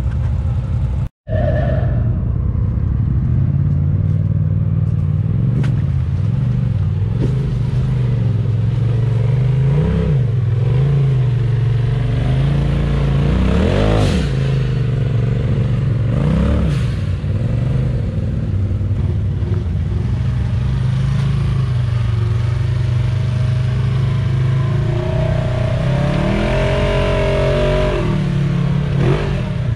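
Side-by-side UTV engine running low and steady while crawling up a rock ledge, with short throttle blips that raise the pitch several times, the strongest around the middle and near the end.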